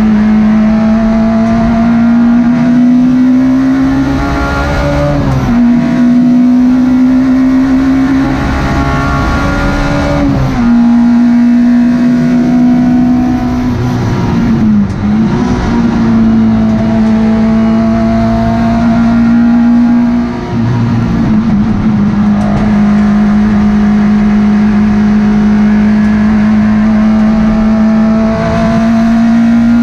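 Citroën Saxo race car's four-cylinder engine running hard, heard from inside the cabin. Its pitch climbs slowly and drops sharply several times as gears change, with a brief dip and recovery about halfway through.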